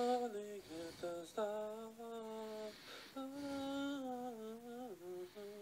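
A single recorded tenor voice singing a slow phrase of held notes that step up and down in pitch. The figure he sings belongs to the soprano part, taken over by mistake.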